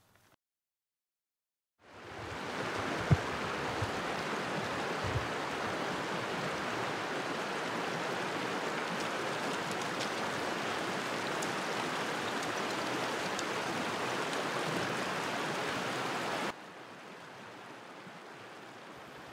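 Steady rushing of running water, starting about two seconds in, with a sharp knock soon after and a softer one a couple of seconds later. Near the end it drops to a quieter, steady water flow.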